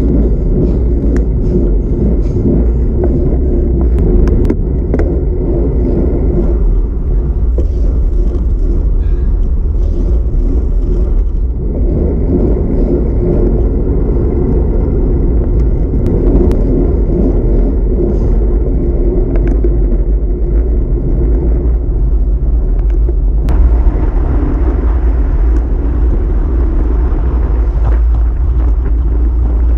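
Wind buffeting the microphone of a handlebar-mounted camera on a bicycle moving at speed, a loud, deep steady rumble mixed with tyre noise on asphalt and scattered light ticks. Its character changes abruptly twice, about 12 and 24 seconds in.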